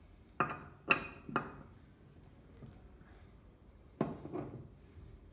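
Steel hand wrench clinking against the wheel bolts of a 1970 Fiat 500 L's steel wheel as the bolts are loosened: three sharp metallic clinks about half a second apart, then another about four seconds in.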